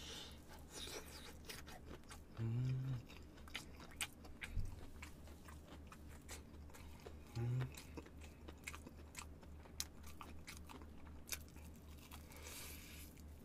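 Close-up chewing of crispy fried chicken, the coating crunching in many small crackles. Twice, a few seconds in and again about seven seconds in, a short low hum from the eater.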